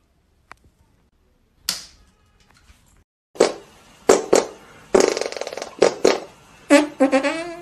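Mostly quiet at first, with a faint click and a short rustling burst. About three seconds in, music starts with a string of sharp hits, and near the end a melody of bending notes comes in.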